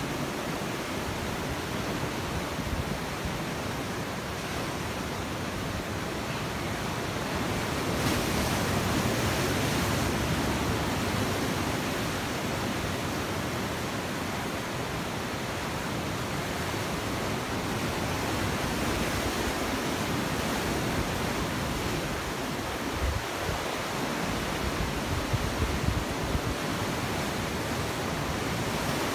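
Ocean surf breaking and washing over shore rocks, a steady rush that swells about a third of the way in. A few low thumps of wind on the microphone come near the end.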